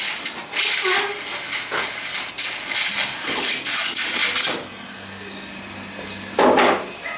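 Surgical suction tip drawing blood out of the bleeding skull wound: an irregular, spluttering sucking hiss that settles about four and a half seconds in into a steady hiss, with one brief louder burst near the end.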